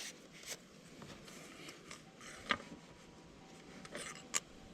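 A few faint sharp clicks and taps, about three in all, as the oil dipstick is pulled from and set back into the ATV's oil filler neck to check the level.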